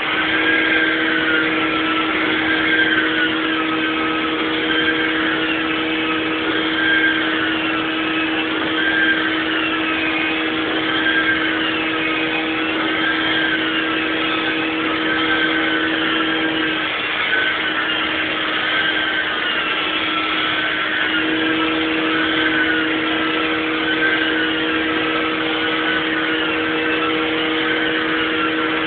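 Carpet-cleaning extraction machine running steadily, its high whine wavering up and down about every two seconds. A lower hum drops out for about four seconds past the middle, then comes back.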